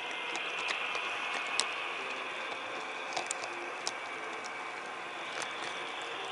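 HO scale model train running along the track: a steady mechanical whir with a few irregular sharp clicks.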